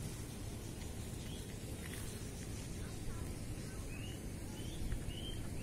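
Steady low rumbling outdoor noise, with a bird repeating a short rising chirp about four times in quick succession near the end.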